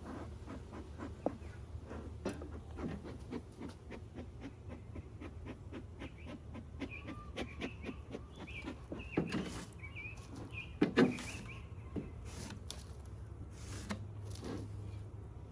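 Honey bees buzzing around an open hive, their hive described as a little bit buzzy, with many small clicks and a couple of louder knocks around the middle. A bird chirps faintly now and then.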